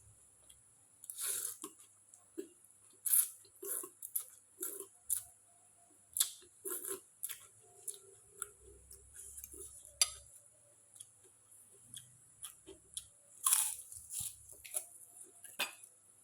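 Close-up eating sounds: chewing and biting crunchy food, with irregular crunches, several louder and longer ones about a second in, about three seconds in and near thirteen and a half seconds.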